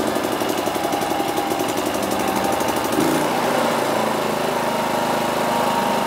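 WAKITA HPG2300is 2.3 kVA inverter generator's small petrol engine running steadily, with a brief shift in its engine note about three seconds in.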